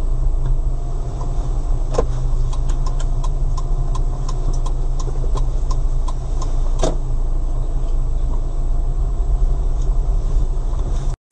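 Car engine idling, a steady low drone heard from inside the cabin, with a run of light clicks, about three a second, from about two to seven seconds in.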